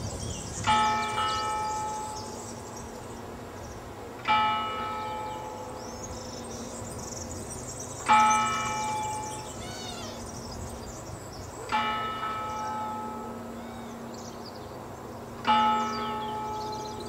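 Church bell tolling five slow strokes, one roughly every four seconds, each ringing on and fading before the next.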